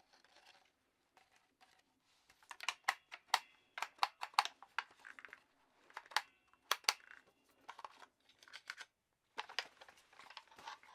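Handling of a PSA Soviet Arms AK-pattern pistol: soft rustling, then a long run of sharp metallic clicks and rattles from its parts being worked, with a short pause before a last cluster of clicks near the end.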